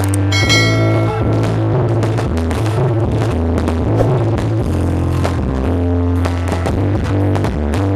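Electronic dance music with a heavy, deep bass line, played loud through a large stacked-subwoofer 'sound horeg' rig during a sound check. A bright high synth tone sounds for about a second near the start.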